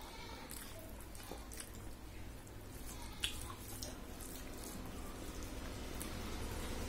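Fingers squelching and mixing cooked rice with dal on a stainless steel plate: wet squishing with small scattered clicks, and a sharper click about three seconds in.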